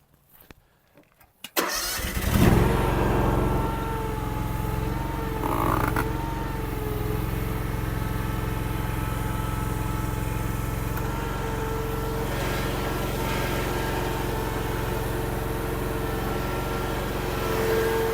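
Derette DRT450 mini skid steer's engine starting about a second and a half in, then settling into a steady idle with a faint whine over the engine note.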